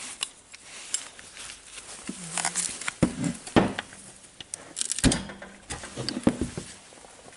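A steel wrench clinking against a cordless drill's metal chuck and being handled and set down on a wooden bench. It makes a run of light metal clinks and several sharp knocks, the loudest about three and five seconds in.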